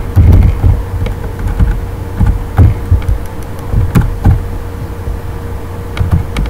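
Scattered keystrokes on a computer keyboard, heard mostly as dull low thumps with a few sharper clicks at irregular intervals, over a steady low hum.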